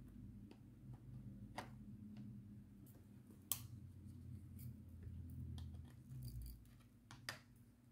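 Faint, irregular clicks and taps from small crafting items being handled, with a few sharper clicks standing out, over a low steady hum.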